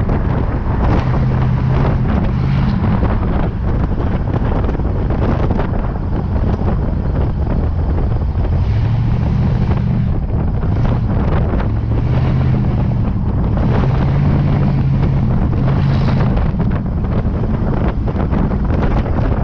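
Wind buffeting the microphone over a 1932 Ford Model B hot rod's Chevy 350 V8 running at road speed, the engine note wavering slightly as the throttle changes.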